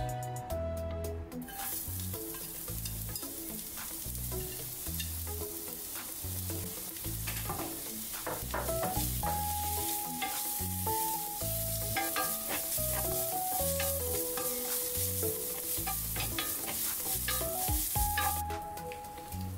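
Julienned carrots sizzling in hot oil in a stainless steel frying pan, stirred and scraped around with a wooden spatula. The sizzle starts about a second and a half in and stops shortly before the end, over background music.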